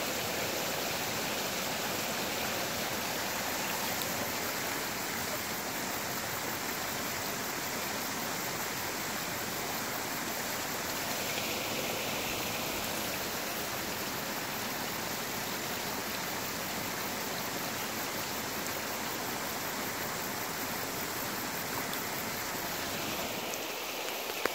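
River water rushing steadily, an even unbroken noise, with one brief tick near the end.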